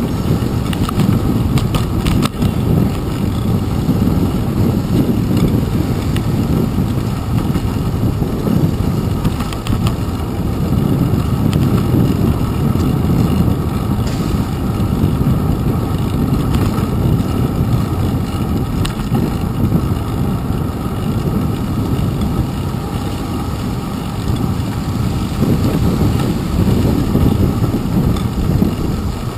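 Steady low rumble of road and riding noise picked up by a bicycle's handlebar-mounted action camera moving through city traffic, with a few brief knocks about two seconds in.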